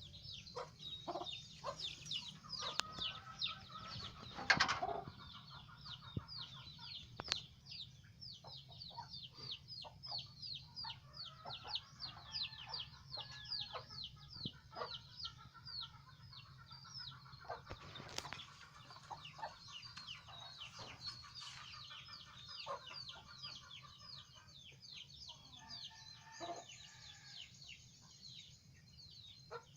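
Birds chirping: a dense, continuous run of quick high falling peeps, with lower call-like sounds in the middle stretch and a steady low hum underneath. One louder burst of noise comes about four and a half seconds in.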